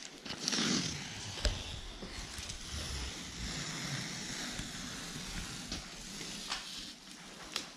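Blue painter's masking tape being peeled off a freshly painted boat hull in one long steady pull, a continuous ripping rasp with a few small ticks.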